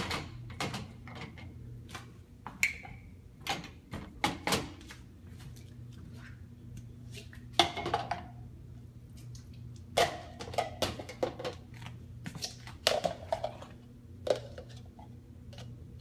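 Plastic cups knocking and clattering against a dishwasher's wire top rack as they are set in, in scattered short clicks and knocks, over a steady low hum.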